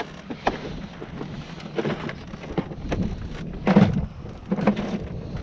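Wind rumbling on the microphone, with a few scattered knocks and taps, the loudest a little before four seconds in.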